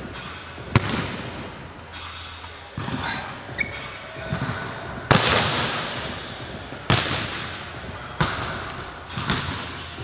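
Basketball bouncing on a hardwood gym floor: about five sharp bangs at uneven spacing, the loudest about halfway through, each echoing in the large hall.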